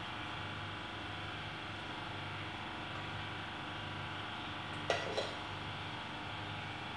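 A metal spoon clinks twice against a ceramic bowl, in quick succession about five seconds in, over a steady background hum.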